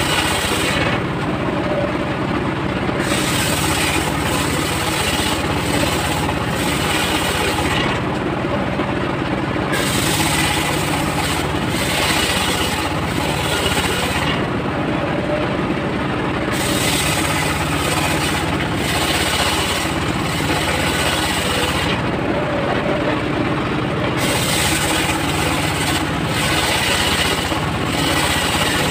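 Homemade engine-driven table circular saw ripping a mahogany plank lengthwise: a steady engine drone under the high hiss of the blade in the wood. The cutting hiss drops out briefly several times as the plank is fed through.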